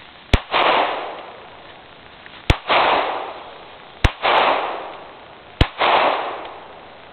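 Four shots from a Glock 22C .40 S&W compensated pistol, fired about a second and a half apart, each crack followed by a loud echo that dies away over about a second.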